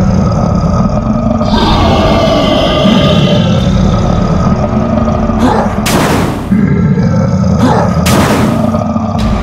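Cartoon monster sound effects: a growling roar over a steady low rumble, with two sudden loud hits about six and eight seconds in.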